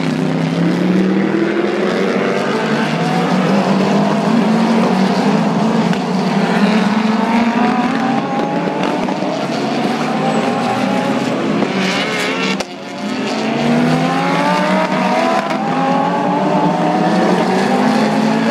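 A pack of GT race cars accelerating out of a corner, several engines overlapping, each climbing in pitch and dropping back as it shifts up through the gears. There is a brief lull about two-thirds through before more cars come by, again rising in pitch.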